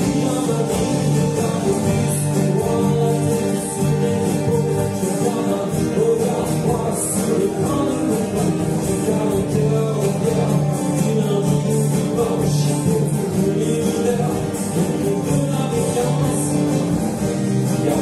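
Live acoustic band music: several acoustic guitars strumming along with a violin and voices singing.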